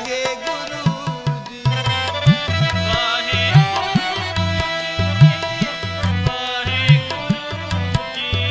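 Sikh kirtan music on harmonium and tabla: the harmonium reeds hold steady chords, and the tabla plays deep bass strokes that bend in pitch, roughly every half second to a second.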